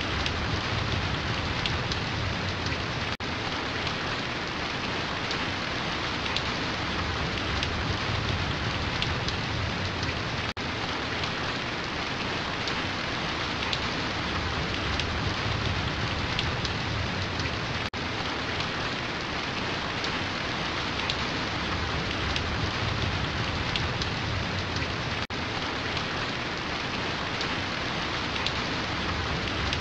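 Steady rainfall, an even dense hiss of drops, with a brief dip in level about every seven seconds.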